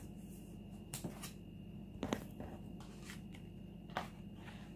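A few faint clicks and taps from tarot cards being handled and laid down, over a faint steady hum.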